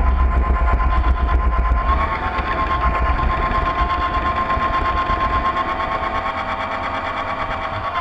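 Drive machinery of a radio-controlled model Voith Schneider tug running, heard from the deck: a steady high whine with a low rumble underneath that eases off around the middle.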